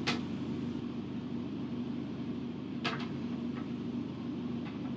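Steady low hum of room ventilation. Two brief soft hissing sounds break it, one right at the start and one about three seconds in.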